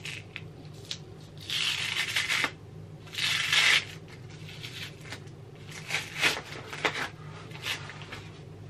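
Protective wrap rubbing and rustling as it is worked off an iMac's back. There are two longer scrapes about one and a half and three seconds in, then shorter scratchy rustles around six to eight seconds, over a low steady hum.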